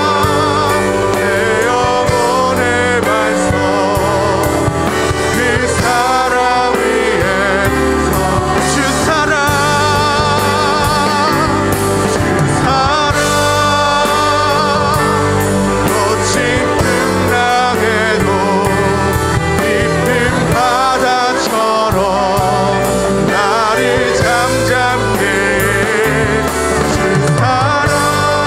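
Live praise-band music: a man singing the lead melody of a Korean praise song over a band with electric guitar and keyboard.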